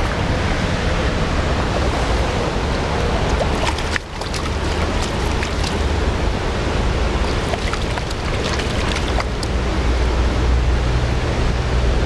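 Stream water rushing over stones in a steady hiss, with a few faint clicks.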